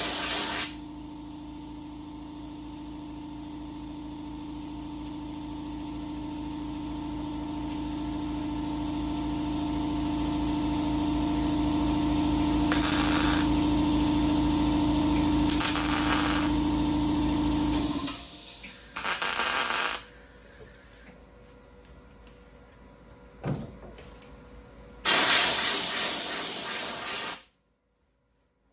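Welder laying short bursts of weld to fill holes in sheet-metal firewall: five bursts of sizzling, crackling noise from under a second to a couple of seconds long, the longest near the end. A steady machine hum runs under the first two-thirds and stops about 18 seconds in.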